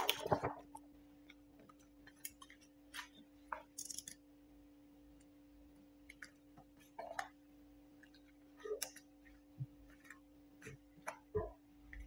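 Scattered light taps, clicks and a brief rustle of hands and a utility knife working protective film onto a wooden bench top, over a steady low hum.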